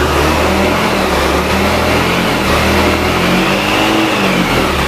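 Belt-drive scooter's single-cylinder engine being revved with the throttle held open, its note rising a little toward about four seconds in and easing off near the end. The scooter does not move under the revving: the rear wheel spins free of the gearbox output shaft, whose threads and those of the wheel hub the mechanic finds stripped.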